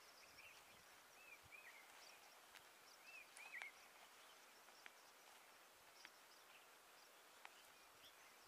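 Near silence: faint outdoor ambience with a few soft, short bird chirps in the first four seconds and occasional faint ticks.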